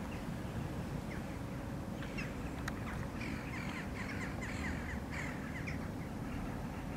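Birds calling: a quick run of short, falling chirps through the middle, over a steady low background rumble.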